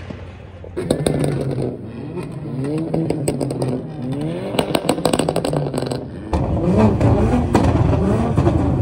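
Modified car engines revving over and over, the pitch climbing and falling, with quick bursts of exhaust pops and crackles. About six seconds in, a louder, deeper engine takes over.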